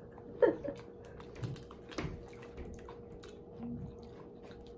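Quiet eating sounds: chewing, lip smacks and finger licking, heard as scattered small wet clicks and a few short soft mouth noises over a faint steady hum.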